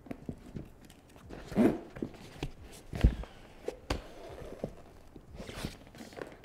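Hands handling and pressing a Yeti Panga dry duffel bag: stiff waterproof fabric rustling, with a series of irregular soft thumps and clicks, the strongest about a second and a half, three and four seconds in.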